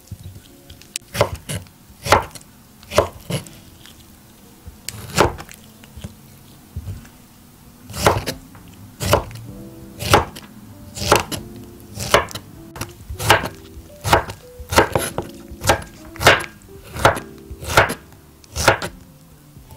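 Kitchen knife chopping fresh strawberries on a wooden cutting board, each cut ending in a knock of the blade on the wood. The chops are scattered at first, then come about once a second over quiet background music.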